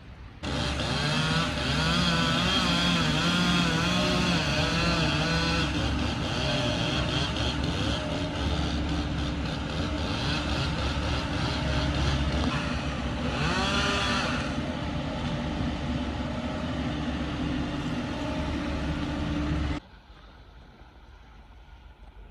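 An engine running loud and steady, its pitch wavering up and down. It starts abruptly just after the beginning and cuts off suddenly near the end.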